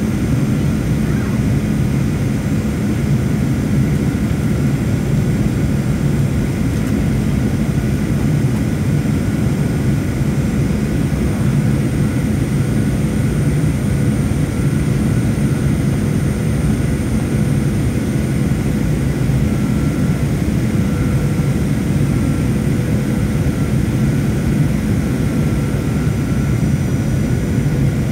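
Airliner cabin noise during the landing approach: the steady rush of jet engines and airflow heard from inside the cabin, strongest in the low range, with a faint steady whine above it.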